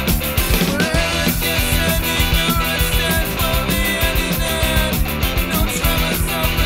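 Punk rock recording: a loud, dense band mix of electric guitars and drums keeping a steady fast beat.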